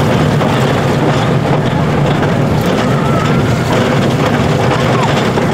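Steel roller coaster running on its track, a steady loud rumble mixed with wind noise, with a few faint high squeals about halfway through and again near the end.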